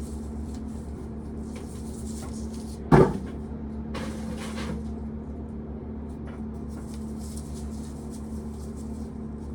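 Corn sheller running with a steady hum, with corn rattling through it now and then and one loud knock about three seconds in.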